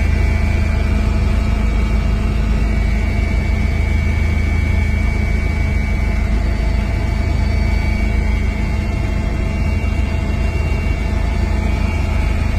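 Helicopter cabin noise in flight: a loud, steady drone of turbine engine and rotor with a constant high whine over it.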